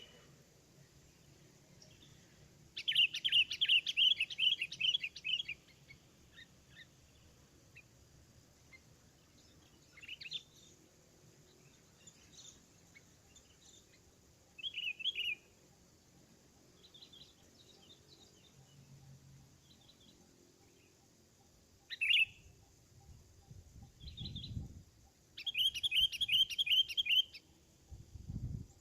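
Sooty-headed bulbul (kutilang) calling in repeated bursts of rapid chattering notes. The longest runs come about three seconds in and again near the end, with shorter single calls in between.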